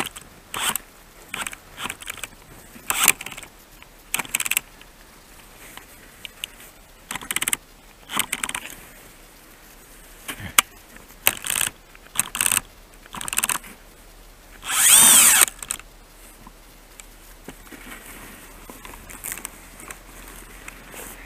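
Cordless DeWalt brushless drill fitted to an ice auger being handled: a string of short clicks and knocks, and about fifteen seconds in, one burst of about a second as the drill motor spins up.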